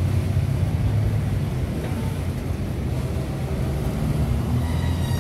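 Freight cars rolling over a railroad overpass bridge: a steady low rumble, with faint thin tones creeping in near the end.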